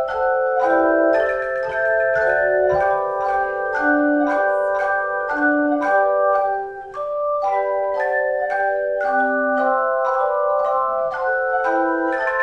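Instrumental music of struck, ringing pitched notes, several sounding together, with new notes about two or three a second and a brief dip in level about seven seconds in.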